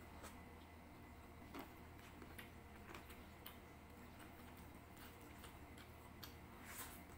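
Faint, scattered clicks and soft sticky sounds of eating by hand: fingers pressing and gathering cooked rice on a tray, then a mouthful near the end. The strongest cluster of clicks comes just before the end.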